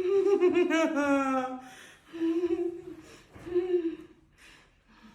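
A woman crying out in pain: one long wavering cry that falls in pitch, then two shorter moans, as she reacts to a chiropractic adjustment.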